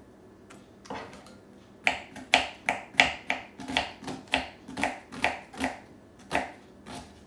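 Kitchen knife chopping an onion on a wooden cutting board: a steady run of sharp knocks, about three a second, starting about two seconds in.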